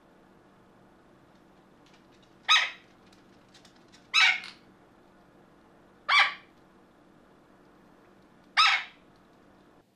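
Small green parrot squawking: four short, loud, harsh calls, spaced unevenly a couple of seconds apart.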